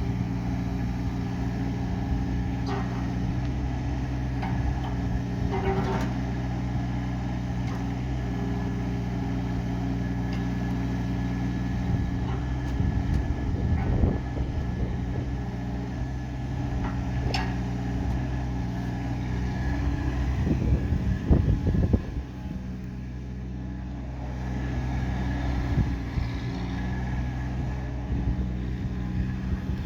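Daewoo Solar 030 mini excavator's diesel engine running steadily, with louder bursts of rattling and clanking about halfway through and again about two-thirds of the way in.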